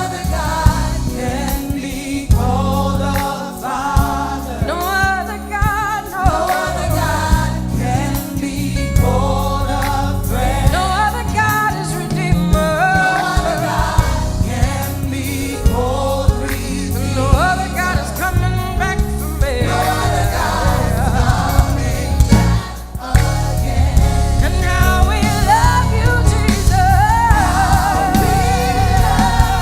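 Live gospel worship music: a group of singers holding wavering, vibrato notes over a full band with bass and drums. The band drops out briefly about two-thirds of the way through, then comes back in.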